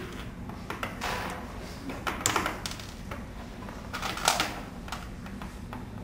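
Plastic ball-and-stick molecular model pieces clicking and rattling in scattered bursts as atoms and bonds are pushed together and pulled apart by hand.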